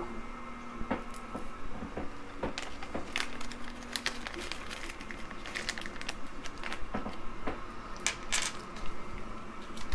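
Irregular light clicks, taps and rustling of hands handling small metal hardware: M5 screws and spring ball T-nuts being picked up and set out for the printer's stepper towers.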